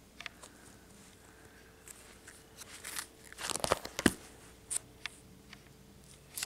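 Plastic sleeve pages of a ring binder crinkling and crackling as they are turned, with scattered light clicks; the loudest rustle comes about three and a half to four seconds in.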